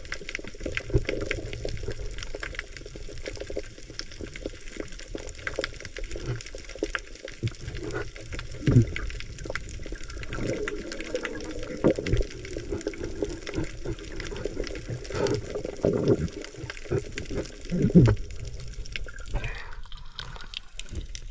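Water noise from freedive spearfishing, with many small clicks. A few times, a low muffled sound swells and falls away.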